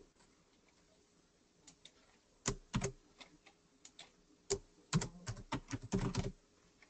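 Typing on a computer keyboard: a quiet first couple of seconds, a few scattered keystrokes, then a quick run of keystrokes about five seconds in.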